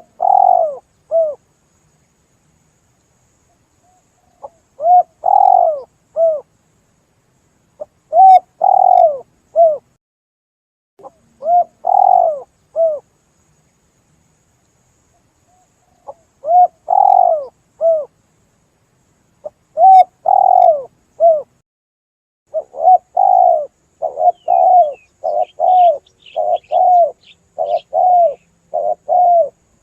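Spotted dove (tekukur) cooing: groups of three or four low coos repeated every few seconds, turning about three-quarters of the way through into a faster, unbroken string of coos. Faint high chirps of a small bird come in near the end.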